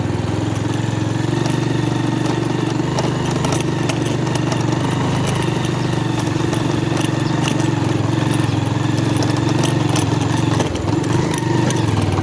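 Motorcycle engine running steadily at low speed in first gear over a rough dirt trail, with many small clicks and knocks from the ride. The engine note dips briefly near the end.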